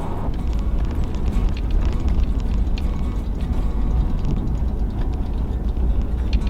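Vehicle driving: a steady low rumble with many scattered small ticks and crackles over it.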